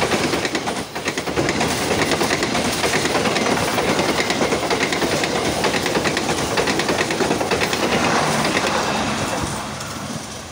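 Passenger train coaches passing close at speed, their wheels clattering rhythmically over the rail joints. The sound fades near the end as the last coach moves away.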